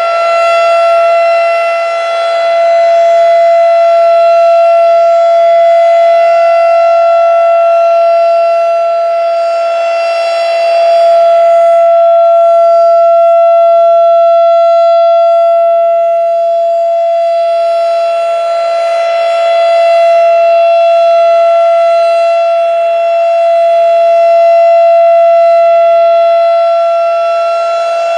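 Three-phase Thunderbeam RSH-10 rotating outdoor warning siren sounding a steady, unwavering tone for its monthly test. The pitch holds constant while the loudness swells and fades slowly as the horn turns toward and away.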